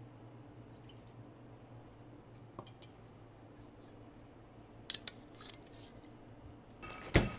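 Bar-counter handling of a glass tequila bottle and metal bar tools: a few light clinks, then a single sharp knock near the end as the bottle is set down on the counter. A faint steady low hum runs underneath.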